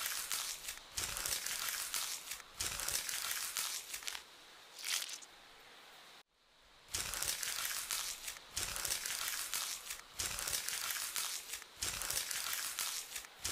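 Crisp crinkling, crunching ASMR scraping sound effect, coming in repeated strokes. It thins to a faint hiss about four seconds in, drops out almost completely just after six seconds, then the strokes resume.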